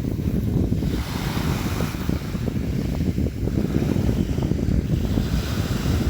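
Sea waves washing and splashing, the hiss of the surf swelling twice, over a steady low rumble of wind on the microphone.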